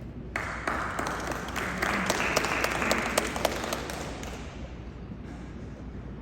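A small audience applauding, starting a moment in, building and then dying away after about four seconds.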